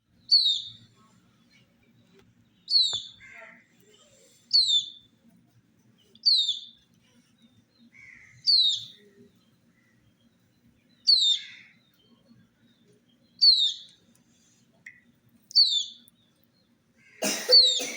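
A chick peeping: a single sharp, falling peep repeated about every two seconds, nine times. Near the end a louder rustle or knock sounds together with a peep.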